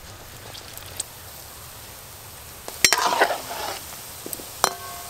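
Gram-flour fritters (phuluri) sizzling in oil in an aluminium wok. About three seconds in, a slotted metal spoon clicks against the pan and stirs them, and the sizzling briefly gets louder. Near the end there is another sharp metal knock with a short ring.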